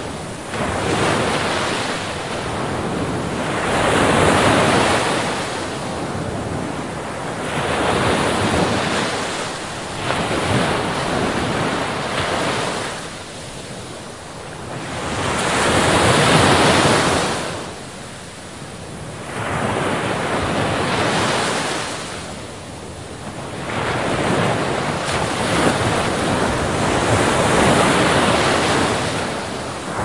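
Sea waves breaking on rocks: a noisy rush of surf and foam that swells and falls away every few seconds, loudest about halfway through.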